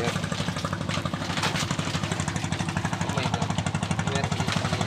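An engine running steadily at low speed, with a fast, even pulse.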